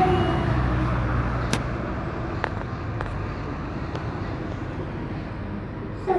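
Military propeller aircraft flying over in formation: a steady low engine drone that slowly grows quieter as they pass, with a few faint clicks and a brief sharp sound near the end.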